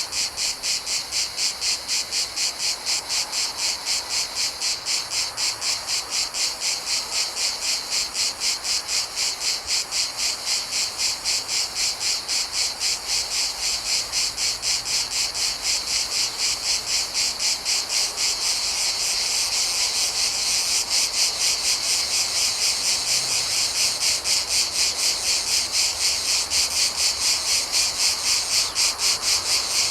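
Cicadas chirping in a steady, high-pitched pulsing chorus at about three pulses a second, growing a little louder about two-thirds of the way through.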